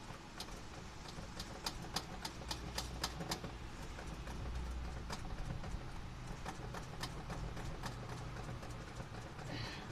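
A run of sharp clicks, several a second for the first few seconds and then sparser, from the throttle linkage of a carburetor being worked by hand with the engine off, to see whether it squirts fuel or is clogged.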